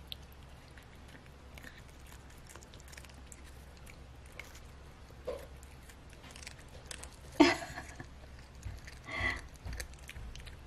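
A cat biting and chewing a raw cabbage leaf, with small crisp crunches throughout and two louder crunches in the second half, the first about seven seconds in being the loudest.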